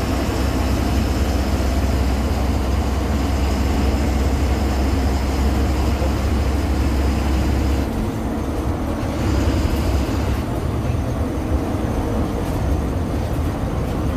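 Engine drone and road noise heard from inside a moving bus, steady and loud; about eight seconds in the low drone drops away and the sound changes.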